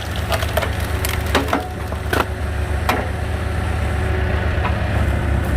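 A firewood log cracking and splintering as a hydraulic log splitter forces it apart, with a string of sharp cracks in the first three seconds. Under it, the engine that drives the splitter runs steadily.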